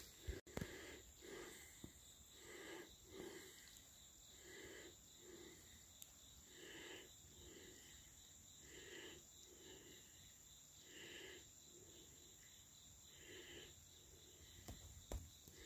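Faint outdoor ambience: a steady high insect drone, cricket-like, with soft sounds repeating about once a second.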